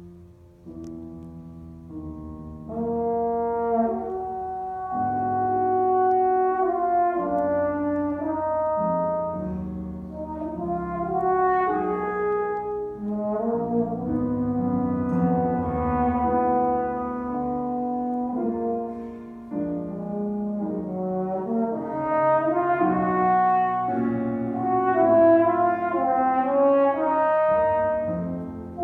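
A brass instrument playing a solo melody in held notes, with piano accompaniment.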